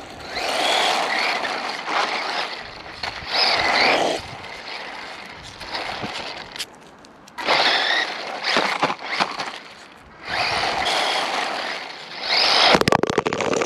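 Electric motor of a DEERC RC car whining and its tyres rolling on asphalt as it drives back and forth, in about five surges that rise and fall, with a short crackling rattle near the end.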